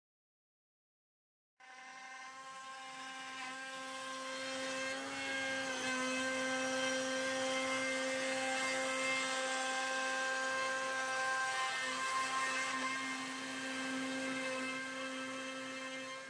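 Silent for about a second and a half, then the CNC router's spindle runs at a steady high whine while its end mill cuts a 2D contour pass through wood. The cutting noise builds over the next few seconds and then holds steady.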